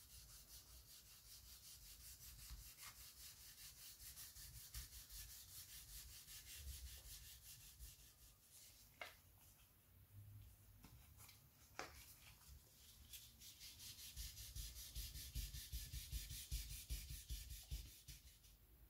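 Fine-grit wet sandpaper rubbing back and forth on a plexiglass light filter, a faint hiss of rapid, even strokes. It eases off midway with a few sharp clicks as the sheet is handled, then starts again more strongly.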